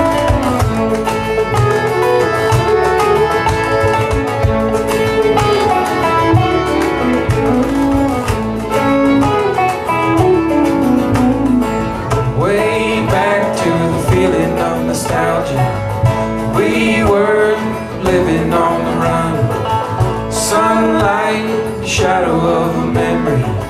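Acoustic string band playing a bluegrass-style folk song live: fiddle, banjo, acoustic guitar and upright bass together.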